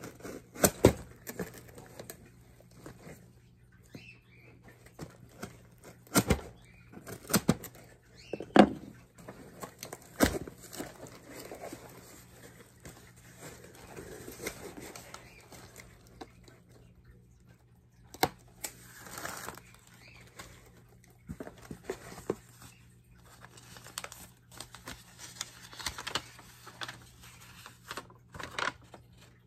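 Cardboard shipping box being opened by hand: a blade slicing the packing tape, then the flaps pulled open and handled, with many scattered sharp clicks and knocks and stretches of scraping, rustling cardboard.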